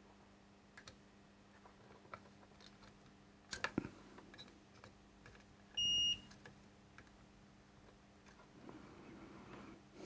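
Fluke digital multimeter giving one short, high beep about six seconds in as its probes are put across a diode on the amplifier's power-supply board. Before it come faint clicks and a few sharp taps of the probe tips against the board.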